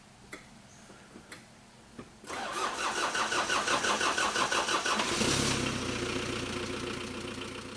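A car engine being started: a few clicks, then the starter cranks with a rapid rhythmic chug for about three seconds. The engine catches and settles into a steady idle.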